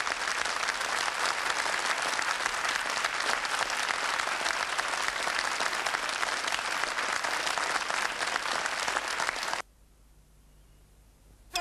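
Studio audience applauding, a dense even patter of many hands clapping. It cuts off abruptly about nine and a half seconds in, leaving near silence.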